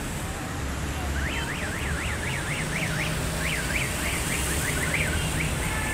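High warbling whistle, rising and falling rapidly about four or five times a second for a few seconds, over a steady low rumble of road traffic.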